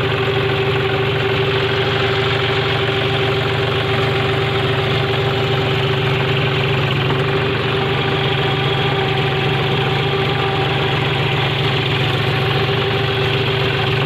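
John Deere 5050 four-wheel-drive tractor's three-cylinder diesel engine running steadily under heavy load while it drags a rear-mounted land-levelling blade through loose soil.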